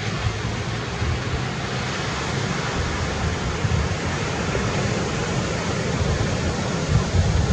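Wind buffeting the microphone, an uneven low rumble over a steady hiss.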